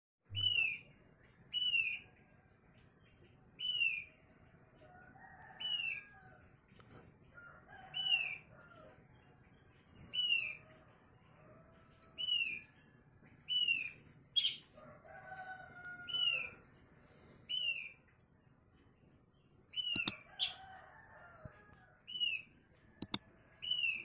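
Caged thick-billed heleia (opior paruh tebal) calling: a short, down-slurred whistle repeated about every two seconds, with lower warbled phrases in between. A few sharp clicks come about two-thirds of the way in and near the end.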